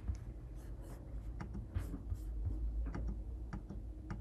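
Scattered light clicks from a computer mouse and keyboard, about half a dozen at irregular intervals, over a low steady hum.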